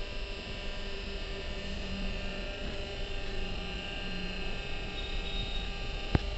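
Hydraulic power pack's electric motor and pump running steadily, a hum made of several steady tones, with one sharp click near the end.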